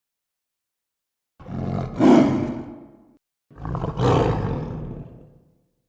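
Cave troll creature sound effect: two roars. The first starts about a second and a half in and is loudest just after two seconds. The second follows a moment later and trails off.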